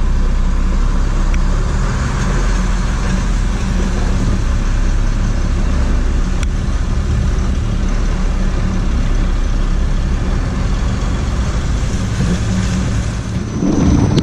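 Loaded truck driving, its engine running steadily under even road noise.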